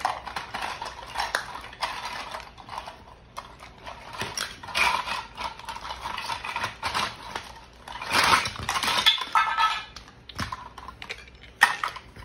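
Toy kitchen pots, pans and utensils being handled, clattering and clinking irregularly as they are knocked together and set down, busiest about eight seconds in.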